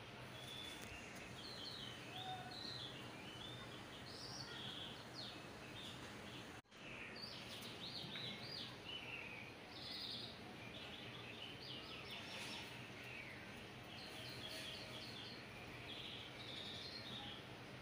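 Faint birdsong: many short chirps and twitters over a steady background hiss. The sound drops out for an instant about six and a half seconds in.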